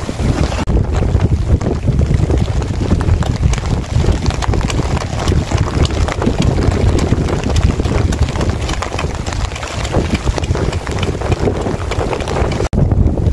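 Wind buffeting the microphone: a loud, steady low rumble with many small irregular ticks over it, cutting out briefly near the end.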